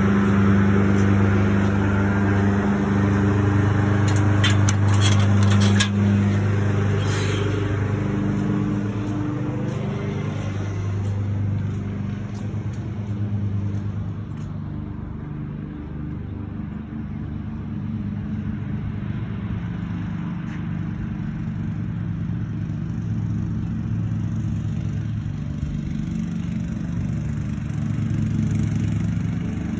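A motor or engine running steadily at a fixed pitch, a low hum, with a few sharp clicks about four to six seconds in.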